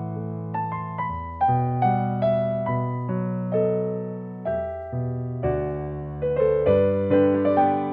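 Background piano music: a melody of struck notes, a few a second, each fading, over held chords.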